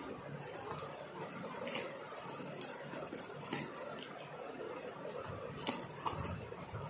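Packing tape being torn off a cardboard shipping box and the flaps pulled open: rustling and scraping of cardboard and paper, with a few sharp snaps along the way.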